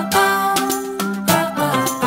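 Background music: a tune of plucked notes, each struck sharply and fading.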